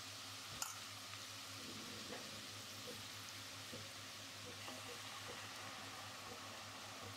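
Oil sizzling steadily in a pot as minced garlic, bay leaves and whole spices fry. There is one sharp click about half a second in.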